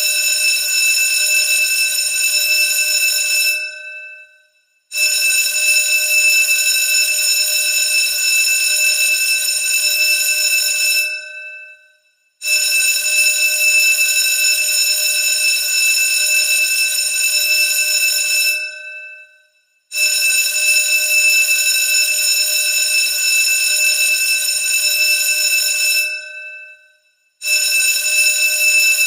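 Electric school bell ringing continuously in loud bursts of about six seconds. Each burst fades out over a second or so, and after a short silence the bell starts again abruptly, four times over.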